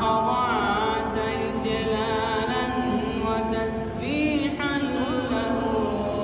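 A man's voice singing a slow Arabic nasheed, drawing out long notes with ornamented pitch glides.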